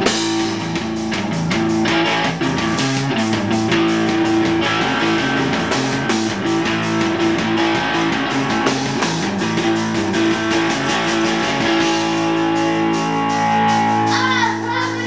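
Live rock band playing: distorted electric guitar over drums. About twelve seconds in the drums drop out and a guitar chord rings on. A voice comes in near the end.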